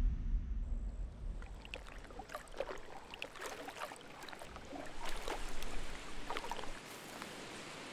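Drops of water plopping and splashing onto a water surface, many small irregular splashes over a faint watery hiss. A low rumble fades away over the first second.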